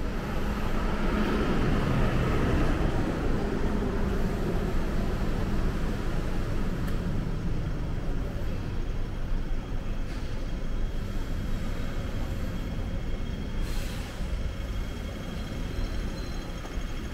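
Street traffic: a steady rumble of passing motor vehicles, with a louder vehicle going by in the first few seconds.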